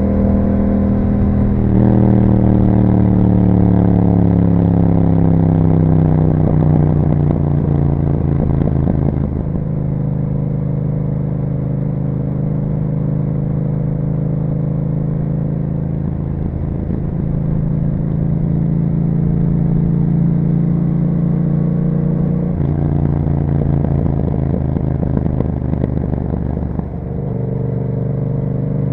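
Yamaha MT-07 parallel-twin engine running through an Akrapovic exhaust under way. Its note falls steadily for several seconds as the revs drop, then holds an even pitch, and changes pitch sharply twice in the last third.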